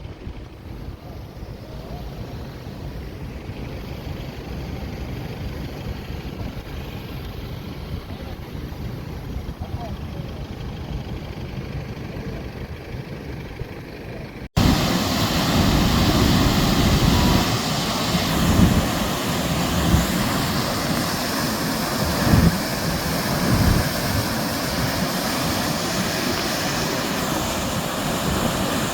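Steady rain noise with no pitched sound in it, much louder after a cut about halfway through, with several low rumbles near the end.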